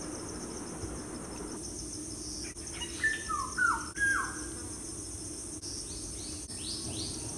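Insects chirring steadily and high, with a few short falling bird chirps about three seconds in.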